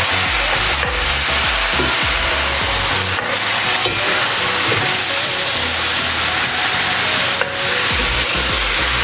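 Seasoned chicken pieces sizzling steadily in hot oil with garlic and curry in a black pan, a metal spoon scraping the pan a few times as the pieces are turned.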